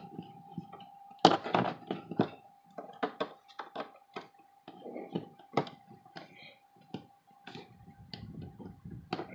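Irregular clicks, taps and knocks of a small screwdriver and fingers on an HP 2000 laptop's plastic display housing as the hinge screws are driven back in, with a cluster of louder knocks about a second in. A faint steady tone runs underneath.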